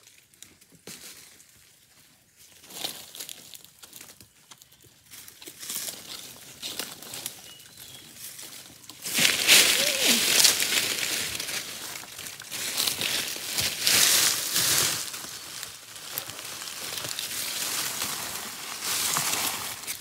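Footsteps and brushing through dry leaf litter and ferns, a crackling rustle of crunching leaves and swishing fronds. It is faint at first and much louder from about nine seconds in.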